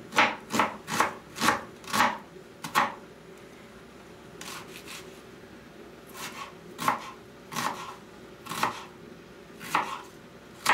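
Kitchen knife chopping an onion on a cutting board: a quick run of sharp knocks in the first three seconds, then after a short pause, single cuts about once a second.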